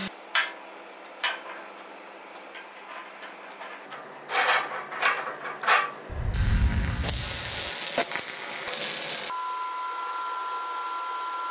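Steel parts clink and clank as a bearing and washers are fitted onto a shaft on a steel welding table. About halfway through, a welding arc starts crackling and hissing, followed by a steady hiss with a thin whine near the end.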